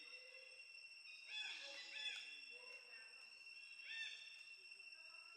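Three or four short, high-pitched animal calls that rise and fall, between about one and four seconds in, over a faint steady high tone.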